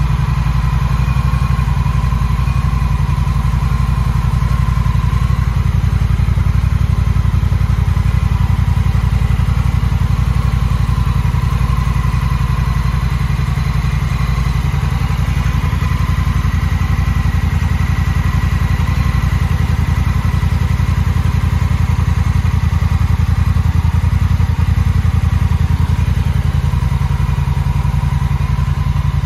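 2021 Honda Rebel 1100 DCT's 1,084 cc parallel-twin engine idling steadily.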